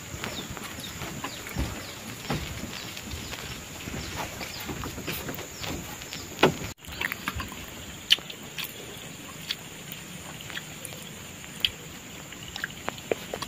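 Scattered light clicks and knocks as a kettle, plates and dishes are handled and set down, over a faint steady high tone.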